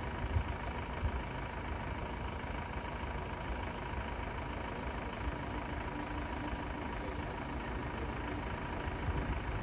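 Van engine idling steadily, with a faint steady high tone over it.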